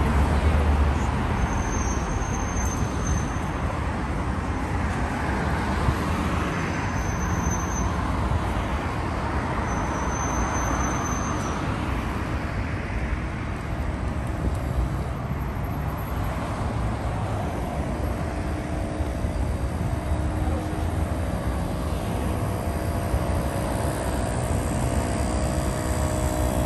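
City road traffic: cars and vans driving past with steady tyre and engine noise. Three brief faint high whines come about 2, 7 and 10 seconds in, and in the second half a vehicle engine running close by adds a steady hum.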